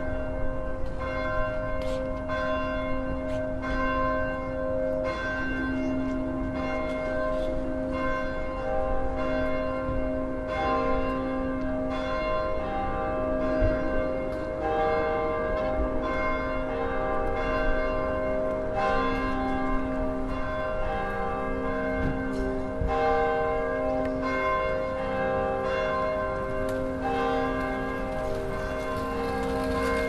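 Several swinging bronze church bells ringing together, heard close up in the belfry. Their clappers strike in an uneven, overlapping pattern, roughly one stroke a second, and each stroke keeps ringing on. This is the ringing that calls people to the start of a service.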